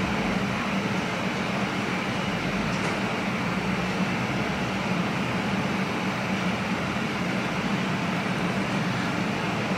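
Steady hum and hiss of a fan running, unchanging in level.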